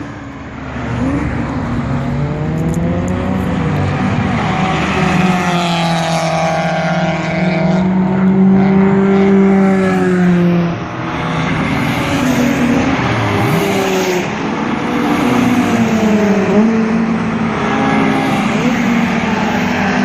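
Several sports cars racing past on a circuit straight. Their engines run at high revs, and the overlapping engine notes rise and fall in pitch as the cars accelerate, shift gears and go by.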